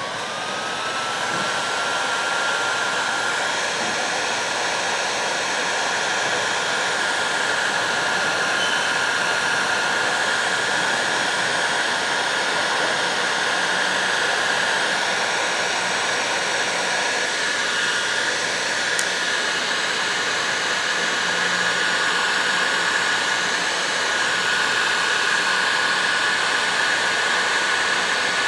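Electric heat gun starting up, its motor whine rising to a steady pitch within the first second, then blowing steadily while it shrinks heat shrink tubing.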